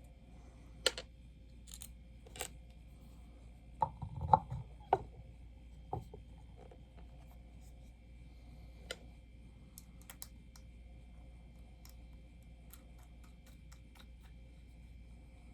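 Scattered clicks and light knocks of hard plastic pieces being handled as a bobblehead's ice cream helmet piece is fitted onto its display base, with a cluster of louder knocks and a dull thud about four to five seconds in.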